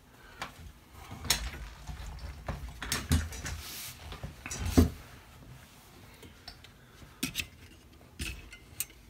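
Scattered light clicks, taps and clinks of small hard objects being handled on a workbench, with a sharper knock a little under five seconds in.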